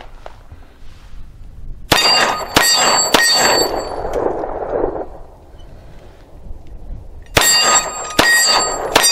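Glock 9mm pistol fired six times at steel plates, in two quick strings of three with about four seconds between them, starting about two seconds in. Each shot is followed by the clang of a struck steel plate ringing on.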